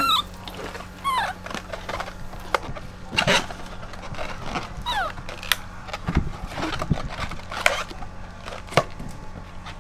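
A baby monkey gives a few short squeaks, one about a second in and another near the middle, amid scattered light taps and knocks.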